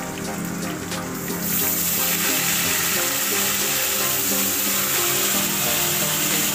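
Oil sizzling as small hilsa fish shallow-fry in a wok, the hiss growing louder about a second and a half in. Background music with steady held notes plays over it.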